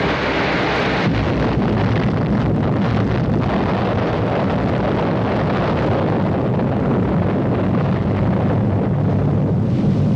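V-2 rocket's liquid-fuel motor firing at liftoff and climb-out: a loud, steady, deep rushing noise.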